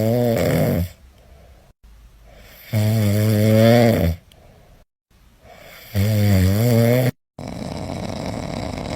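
A person snoring loudly: three long, pitched snores about three seconds apart, each wavering in pitch, then a softer, noisier rasping breath near the end.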